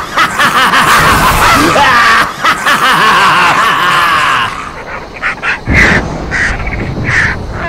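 Loud horror sound effects from Halloween animatronic props: wild laughter and screams over music for the first half. After a low thump about two thirds through come about four short bird calls.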